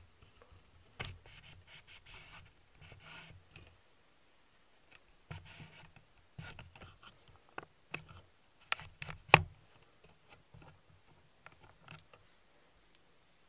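Scattered rubbing and scraping handling noises with a few sharp clicks, the loudest about nine seconds in.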